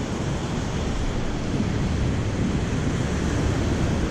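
Steady wash of surf breaking on a sandy beach, with wind rumbling on the microphone.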